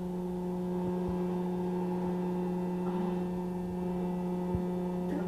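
Electric popcorn maker running with a steady motor hum, with a few soft pops about a second in and near the end as the kernels begin to pop.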